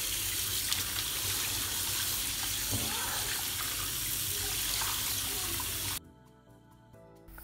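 Tap water running into an aluminium pressure cooker full of chopped cassava pieces in a steel sink, splashing as a hand rinses and rubs the pieces. The water sound cuts off abruptly about six seconds in, leaving faint music.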